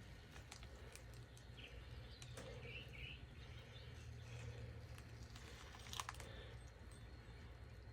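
Faint, scattered crackling clicks of transfer tape being peeled back from a vinyl decal on a car door, over a steady low hum, with a few faint bird chirps; the sharpest click comes about six seconds in.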